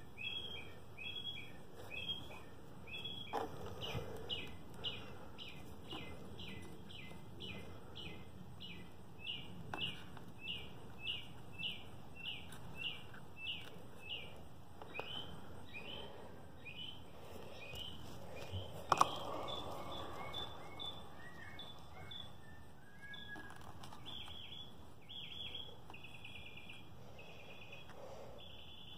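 A bird calling over and over, faint, with short chirps at about two a second that give way to longer notes near the end. One sharp click comes a little past halfway.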